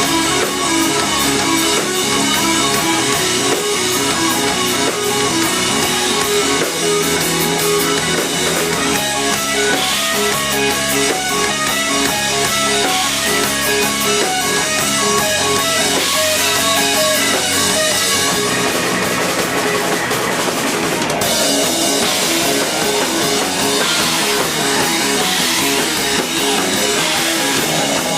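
Live rock band playing loud, steady instrumental rock: drum kit and electric guitars. About three-quarters of the way through, the crashing high cymbal wash cuts off abruptly and the texture changes.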